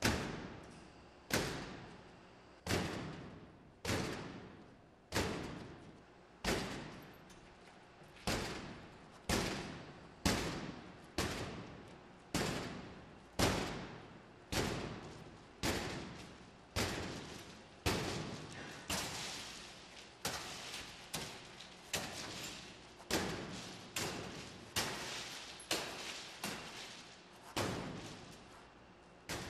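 A metal bar smashing again and again into a door pane of glass coated with 3M S140 safety film, about one blow a second. Each blow is a sharp crack followed by a brief crackle of crazed glass, the shattered pane staying held together by the film rather than falling out.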